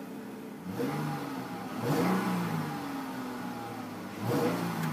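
2011 Dodge Charger SE's 3.6-litre V6 revved from idle, heard from inside the cabin: three quick blips, each rising and then falling in pitch, starting about a second in, about two seconds in, and near the end.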